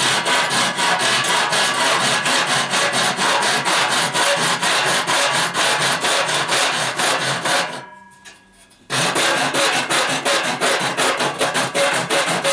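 Small free-ended hacksaw cutting through the thin tabs that hold a panel in a laser-cut aluminium dome: rapid, light back-and-forth strokes, very noisy. The sawing stops for about a second near two-thirds through, then resumes.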